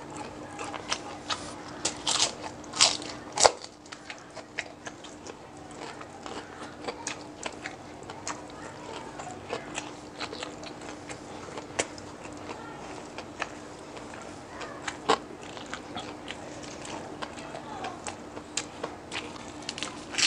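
Crunching and chewing of crispy deep-fried pork mesentery (chicharon bulaklak), close to the mouth: many short crisp crackles from bites and chewing, loudest about two to three and a half seconds in.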